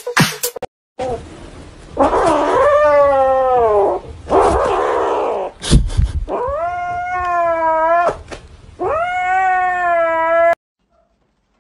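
Grey kitten yowling in four long, drawn-out calls, each a second or more, the first two rough and breathy. It is warning off a hand that reaches for the plush toy it is clutching.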